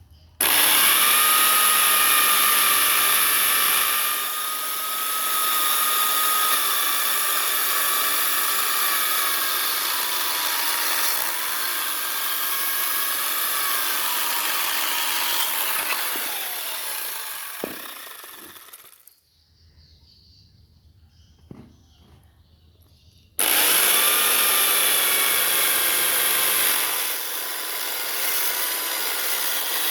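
Power tool cutting into wood in two long runs, its motor holding a steady high pitch. It winds down and stops a little past halfway, with a single click in the pause, then starts again abruptly a few seconds later.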